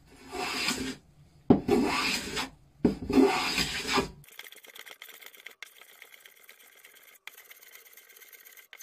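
Metal hand plane taking shavings off the edge of a fir board: three rasping strokes of about a second each, then fainter scraping for the rest.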